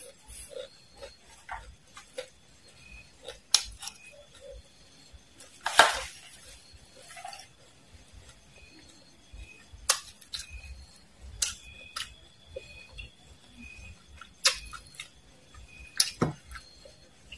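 Close-miked eating of fried worms and mole crickets: scattered sharp crunches and clicks, with a metal spoon clinking against the plate now and then. The loudest crunch comes about six seconds in.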